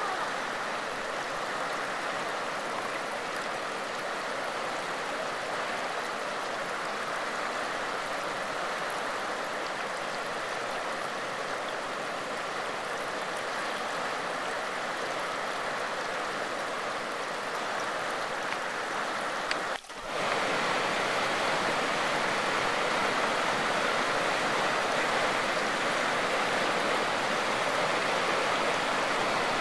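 Floodwater rushing steadily over rocky rapids of a river in spate. The sound drops out for a moment about two-thirds of the way through, then returns a little louder.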